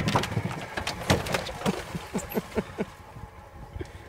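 Splashing footsteps of a person scrambling through shallow pond water: a quick, irregular run of splashes that thins out near the end.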